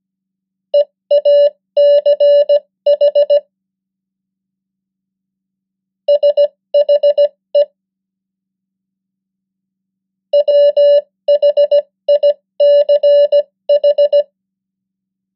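Morse code practice tone sent at 15 words per minute: a steady mid-pitched beep keyed into dots and dashes. Three words are sent, each followed by a pause of about three seconds.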